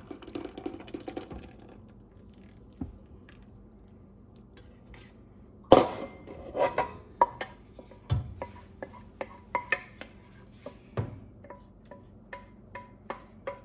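Thick cream sauce poured from a stainless saucepan into a stainless stockpot, then a string of metal knocks and ringing clinks as the saucepan is tipped and emptied over the pot, the first knock about six seconds in the loudest.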